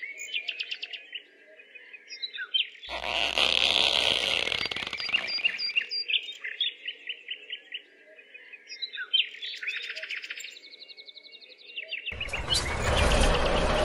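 Small birds chirping and twittering over and over. A loud noise with a low hum breaks in from about three to six seconds in, and another loud noise starts near the end.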